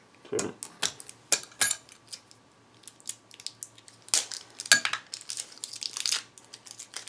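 Handling noise from unboxing a small portable audio recorder: irregular sharp clicks, knocks and brief rustles of plastic and packaging being moved about, in clusters with short quiet gaps between.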